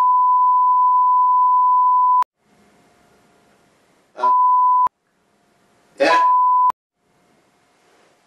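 Censor bleeps: a steady high pure tone blanking out speech, first held for about two seconds, then two short bleeps about four and six seconds in, the short ones cutting in over fragments of a man's speech.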